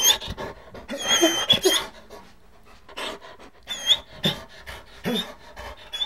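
Dog panting: quick breathy huffs in uneven bursts, with a few short, high, thin notes among them.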